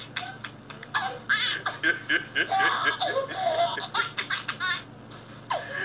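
A baby's high-pitched giggles mixed with a man's laughter in quick repeated bursts, heard over a Skype video call. The laughter dies down briefly near the end.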